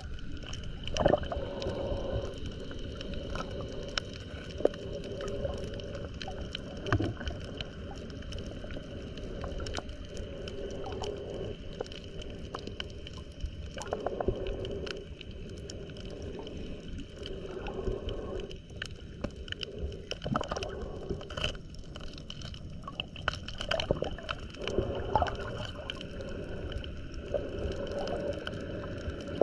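Muffled underwater sound picked up by a submerged camera moving over a coral reef: a low rumble with scattered clicks and crackles, and a muffled swell that comes back every few seconds.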